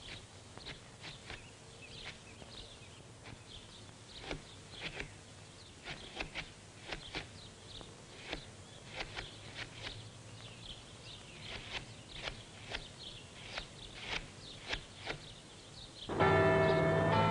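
Birds chirping in short, quick calls, scattered and fairly faint. About sixteen seconds in, loud bells start ringing, several pitches sounding together.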